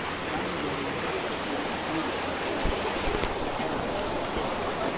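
Steady rush of water running and splashing over rocks in a shallow stream below a waterfall.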